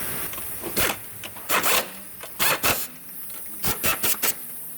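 A series of short, sharp rasping bursts, about nine in groups of two to four, from tool work on the car.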